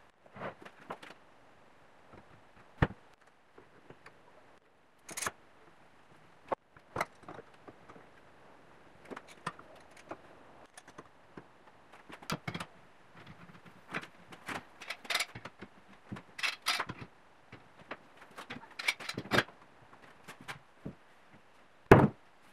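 Metal woodworking clamps clicking and clattering as they are set and tightened across a glued-up wooden frame, with scattered light knocks of wood and metal. A heavier wooden knock comes near the end.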